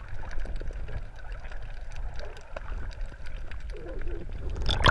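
Muffled underwater sound through an action camera's waterproof housing: a steady low rumble with scattered faint clicks, then a brief splash near the end as the camera nears and breaks the surface.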